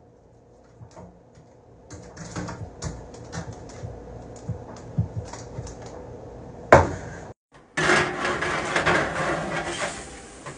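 A roast being handled on a metal baking tray with a wire rack and paper liner: rustling and light clicks, then a sharp metal clank about seven seconds in. This is followed by a few seconds of louder scraping as the tray goes into the oven.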